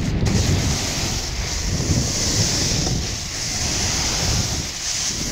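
Wind buffeting a phone's microphone: an uneven low rumble that swells and eases in gusts.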